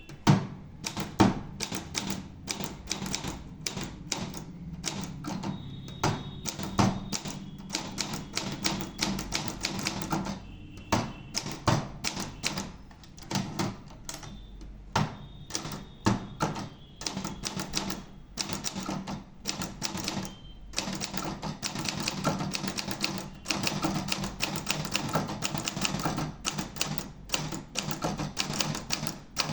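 Olympia Traveller de Luxe portable manual typewriter being typed on: keys striking in quick runs of sharp clacks, with a few short pauses between runs.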